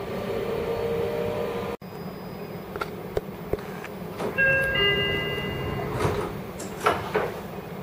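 Door-closing chime of a Seibu 40000 series commuter car, a few held tones about four and a half seconds in, followed by the sliding doors thudding shut over a steady cabin hum.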